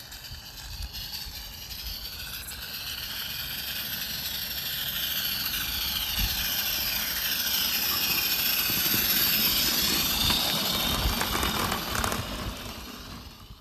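16mm-scale live-steam garratt locomotive fitted with a Summerlands Chuffer exhaust enhancer, chuffing and hissing as it runs. It grows louder as it approaches, is loudest just before it passes close by, then falls away.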